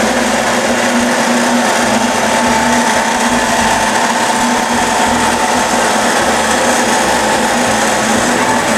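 Weeke Optimat BHC-350 CNC machining center running with its vacuum pump and coolant pump switched on, during referencing. It is a steady, loud whir with a constant whine that does not change.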